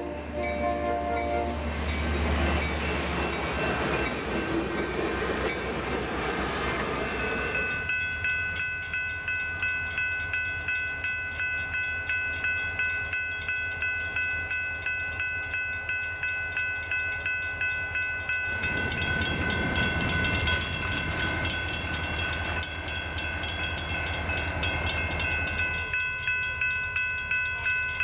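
Diesel-hauled passenger train passing: the locomotive horn cuts off about a second in, then the locomotives rumble past for several seconds. After that a regular ringing beat with steady high tones carries on as the cars roll by, with another surge of rumbling and rail noise partway through.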